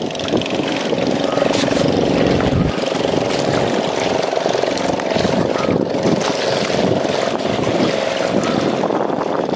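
A steady motor drone with several held tones, over a background of wind and water noise.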